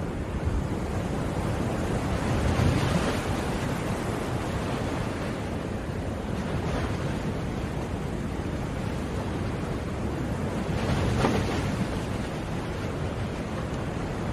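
Ocean waves breaking on a shore: a steady wash of surf, with a bigger wave breaking about two and a half seconds in and another near the end.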